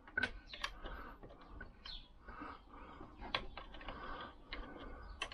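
Faint, irregular metallic clicks and taps as the rear brake cam lever is worked into place on a Lambretta engine casing with hands and a small tool.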